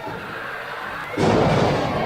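A heavy wrestler hitting the ring canvas: a sudden loud thud about a second in, followed by a noisy rumble.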